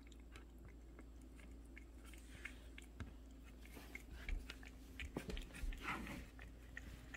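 Cat licking a cat candy treat ball: faint, wet tongue clicks and smacks, coming more often from about four seconds in.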